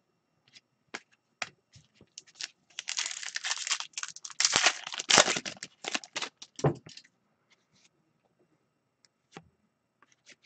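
A hockey card pack's shiny wrapper being torn open and crinkling for about four seconds in the middle, with scattered light clicks of cards being handled before and after.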